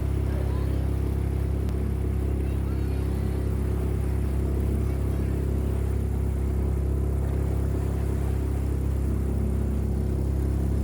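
Park toy train's engine running steadily, a constant low hum with no change in pitch or level.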